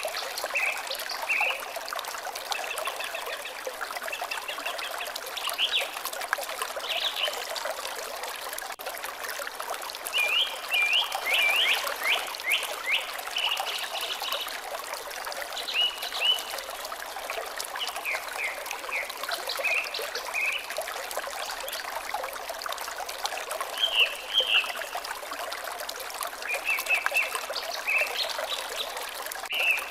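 Water trickling steadily, with birds singing in short, repeated chirping phrases over it; a quick run of chirps comes about ten seconds in.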